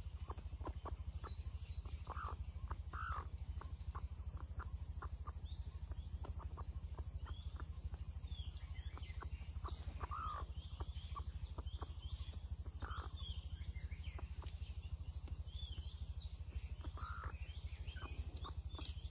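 Chickens clucking a few times, about five short clucks spread out, with thin high chirps in between. A steady low hum and faint ticking run underneath.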